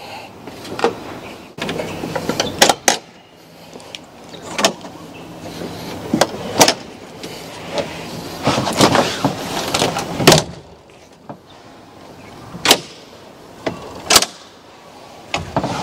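Irregular clunks, clicks and rattles of a truck camper's fold-out wall panels being handled and raised by hand from inside, with knocks from someone moving about on the bed platform.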